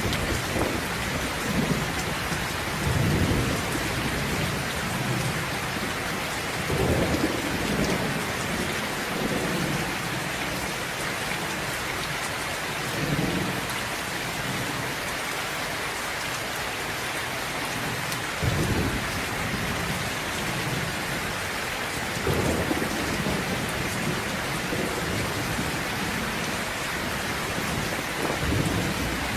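Steady heavy rain hissing, with rolls of thunder rumbling in low swells every few seconds.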